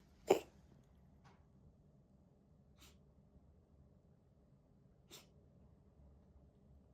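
A kitten's sharp sneezing or coughing fits: one loud burst just after the start, then three faint short ones spread over the next five seconds. These are the fits the owner feared were asthma coughing, which a vet judged to be just sneezing.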